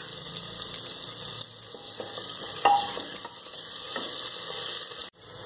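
Chopped tomatoes sizzling in hot oil with browned onion masala in a pressure cooker, stirred with a spoon that scrapes and clicks against the pot now and then. The sizzle breaks off suddenly near the end.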